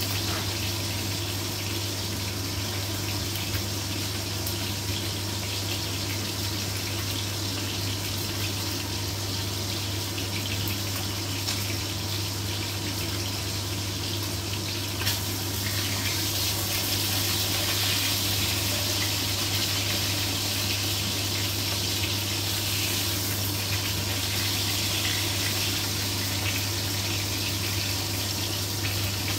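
Pork steaks sizzling steadily in hot oil in a wok, the hiss growing louder about halfway through. A low steady hum runs underneath.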